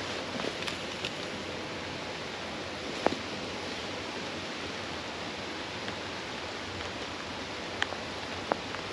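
River water rushing steadily, with a few short clicks now and then.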